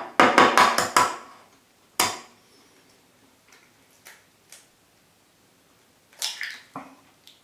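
Tableware knocks as a raw egg is tapped and cracked over a ceramic rice bowl: a quick run of about six sharp knocks in the first second, one more knock about two seconds in, then a few lighter taps and a short cluster of clicks near the end.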